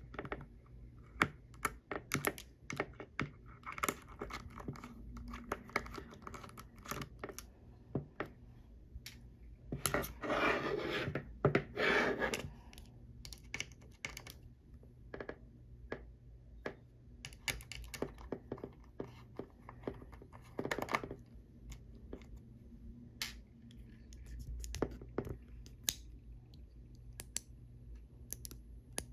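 Small screwdriver working the screws of a 3.5-inch hard drive's metal case: many irregular light metallic clicks and ticks, with longer scraping passages about ten seconds in and again near twenty seconds.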